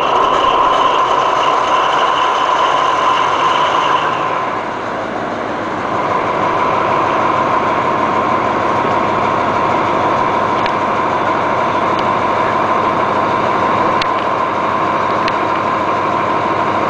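Alsthom diesel locomotive's engine running just after firing on a restart, with a high whine over the first four seconds. It eases off around four to six seconds in, then settles into a steady idle.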